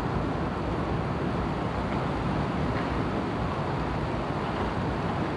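Steady rushing of a river running over rocks.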